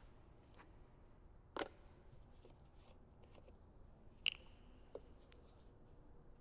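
Quiet handling noises as epoxy components are poured into the injection pump's A and B reservoirs: a few light knocks and clicks. The loudest is a sharp click with a brief ringing tone about four seconds in.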